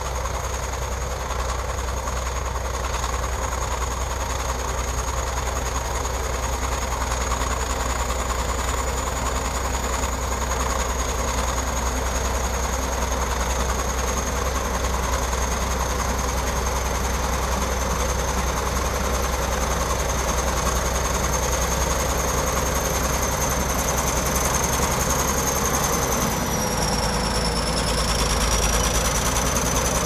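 Shantui SD22 bulldozer's diesel engine running steadily under load as the crawler pushes dirt with its blade, with a thin high whine over it that drops slightly in pitch near the end.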